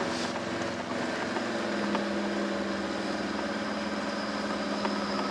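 A steady machine hum with several held low tones and a few faint ticks.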